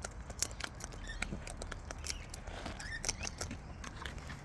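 Wild birds' beaks pecking and cracking seed in a feed bucket: quick irregular clicks and taps, several a second.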